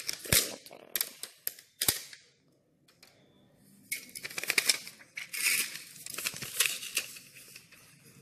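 Parts of a dismantled Micromax touchscreen phone being handled and pried apart: sharp snaps and clicks of its plastic frame and thin metal and film sheets. Two loud snaps come within the first two seconds, then a short pause, then a run of crackling and crinkling.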